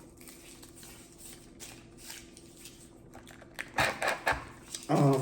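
Quiet room with a faint steady hum, then a quick cluster of sharp crackling noises from the meal being eaten and handled, about four seconds in. A voice starts right at the end.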